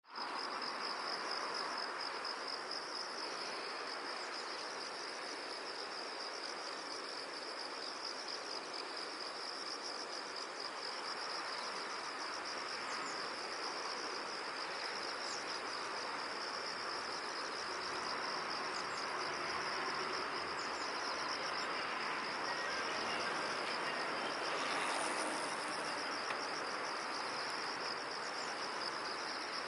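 A continuous, high-pitched insect chorus, a rapidly pulsing trill that holds steady throughout, over a constant wash of background hiss, with a few faint short chirps now and then.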